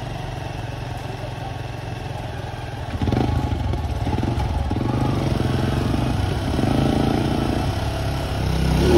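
Motorcycle engine running while riding, getting louder about three seconds in.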